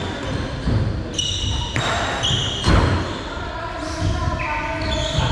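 Badminton rally on an indoor court: a few sharp racket hits on the shuttlecock, with short high-pitched shoe squeaks on the court floor.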